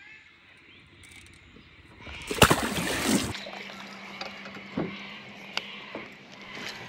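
A Murray cod splashing as it is let go over the side of the boat, a short loud rush of water about two and a half seconds in. After it, a faint steady hum and a few small clicks.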